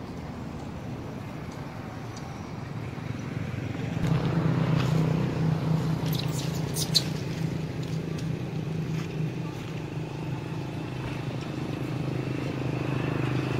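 A motor engine running steadily at an even pitch, coming up about four seconds in, with a few light clicks and one sharp click near the middle.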